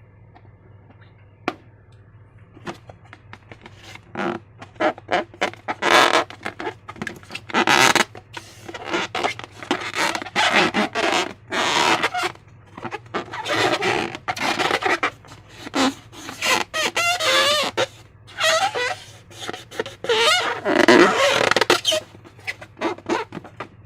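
Wet, sticky squelching of slime being squeezed and worked by hand, in irregular bursts that start about four seconds in and come thicker toward the end.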